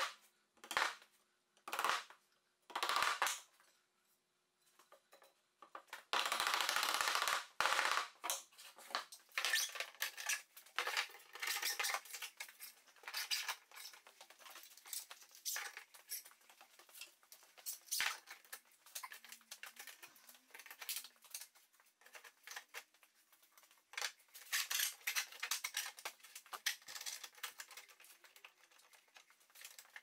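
A few knocks of a mallet tapping a plywood panel in the first three seconds, then a louder rushing noise for about two seconds. After that come many irregular clicks, clinks and rattles of steel bar clamps being handled, slid and tightened.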